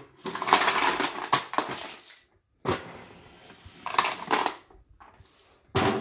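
Loose plastic Lego pieces clattering and rattling in irregular bursts. The densest run comes in the first two seconds, and shorter bursts follow after a brief pause.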